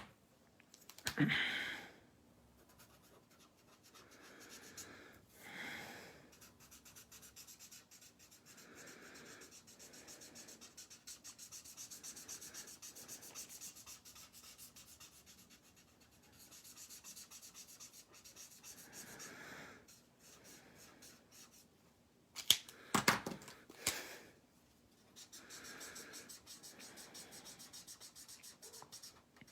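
Felt-tip colour-lifter pen rubbing across cardstock in long stretches of faint, scratchy strokes. There are a few louder knocks of handling about a second in and again about two thirds of the way through.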